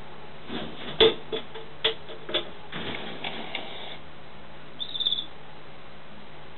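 Sharp clicks and rustles of a hand handling a European nightjar on cloth, the loudest click about a second in. The nightjar, gaping defensively, gives a brief hiss near the middle, and a short high chattering squeak comes about five seconds in.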